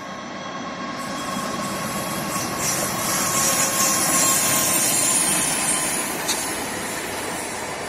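Freight train rolling past: a steady rumble growing louder to its loudest about four seconds in, then easing slightly as the cars keep going by.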